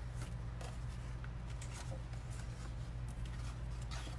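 Faint rustling and light ticks of cardstock pieces being handled and sorted, over a steady low hum.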